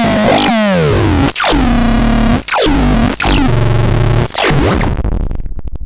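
LEBKON C220L playing its electronic demo sounds: rich synthesized tones, each swooping down in pitch and then holding, with short breaks between them about once a second, dying away near the end.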